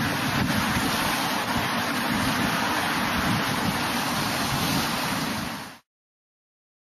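Fast floodwater rushing down a concrete flood channel: a steady, loud rushing noise that cuts off suddenly near the end.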